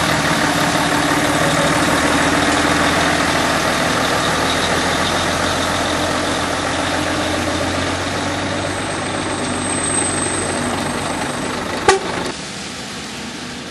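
Heavy diesel truck engines running steadily close by on a slushy road. There is one sharp knock about twelve seconds in, and then the sound fades down near the end.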